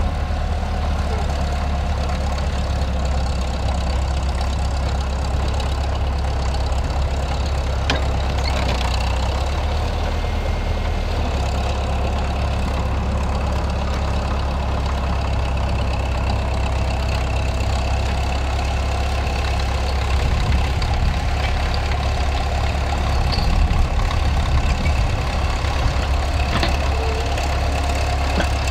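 Caterpillar D4 crawler tractor's four-cylinder diesel engine running steadily under load as it pulls a trailed plough through the soil, a low engine note that swells slightly about two-thirds of the way through.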